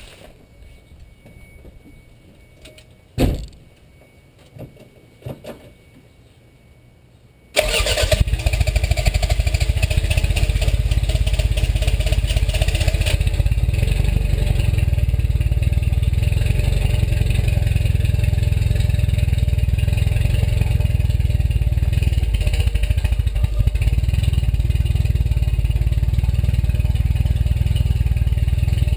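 A sharp click about three seconds in, then from about seven and a half seconds a Toyota MR2 Turbo's turbocharged four-cylinder engine cranking on the starter and not firing, the sign of a no-start.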